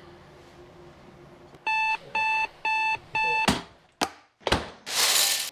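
Digital alarm clock beeping four times, about two beeps a second. Then come a few sharp clicks, one of them the switch of a white plastic electric kettle, and a short burst of noise near the end.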